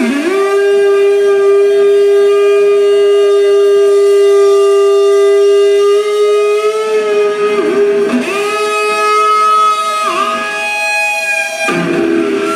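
Live electric guitar played alone through a concert PA, with no bass or drums: one note held for about six seconds, then shorter held notes that dip down and bend back up several times. Near the end it drops to lower, denser notes.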